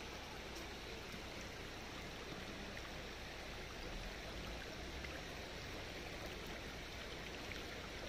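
Shallow river flowing over rocks and stones: a steady rush of running water.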